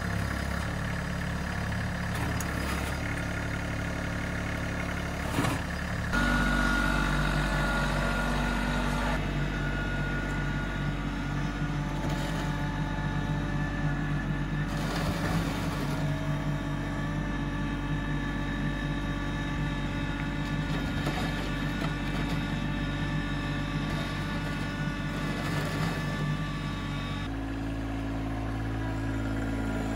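Kubota LX2610 compact tractor's 26-horsepower three-cylinder diesel engine running steadily while the tractor drives. The engine note shifts abruptly about six seconds in and again near the end.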